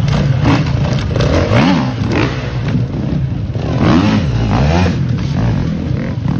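GasGas enduro dirt bike engine revving in short bursts, its pitch rising and falling several times as the rider blips the throttle to get over logs and tyres.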